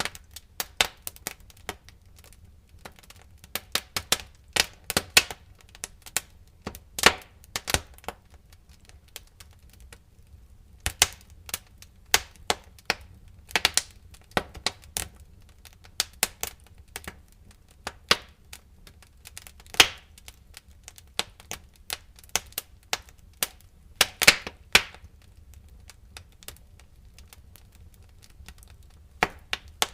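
Wood fire in a fireplace crackling: irregular sharp pops and snaps, some in quick clusters, with a few brief lulls, over a faint low rumble.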